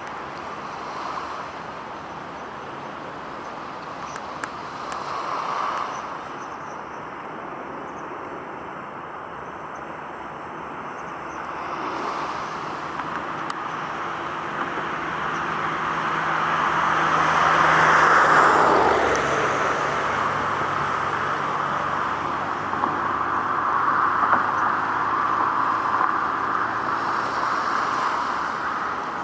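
Road traffic passing steadily, with one vehicle going by close about two-thirds of the way in: its noise swells to the loudest point and drops in pitch as it passes. A low engine hum runs under the second half.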